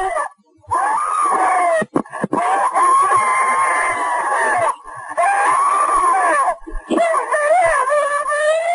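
An elderly woman screaming in distress: several long, wavering cries with short breaks between them, words muffled into the screams as she cries for help.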